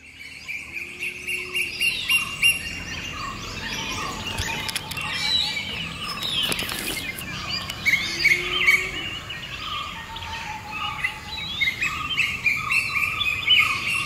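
Many wild birds chirping and whistling over one another in a continuous chorus of short, overlapping calls.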